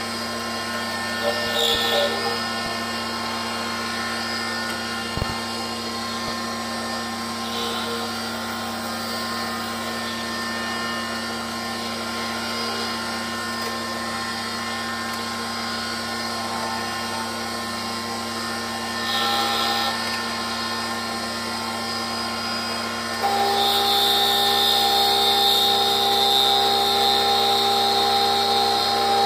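Benchtop mini metal lathe running with a steady motor whine and hum, with a few brief scraping noises. About 23 seconds in the sound steps up louder, with a new higher whine.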